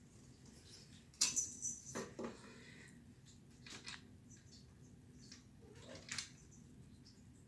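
Scattered rustling, scraping and small clicks from parts being handled during a ceiling fan installation. The loudest come about a second in, around two seconds in and near the end.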